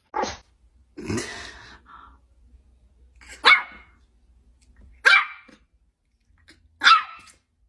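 A Pomeranian making five short, sharp bursts of sound. The second is longer and breathier, and the last three are the loudest, coming at even intervals of about a second and a half.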